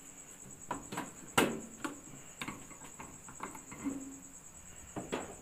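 Scattered light clicks and knocks as a power cord and plug are handled against a stainless steel deep fryer and its plastic wrapping, the sharpest about a second and a half in. A steady, high-pitched pulsing trill runs underneath throughout.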